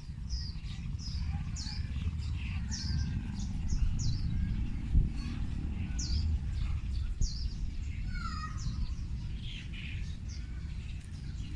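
Songbirds chirping: many short, high notes that fall in pitch, repeated again and again, over a steady low rumble.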